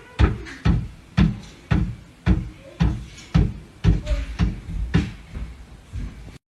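A steady series of heavy thumps or knocks, about two a second, a dozen in all.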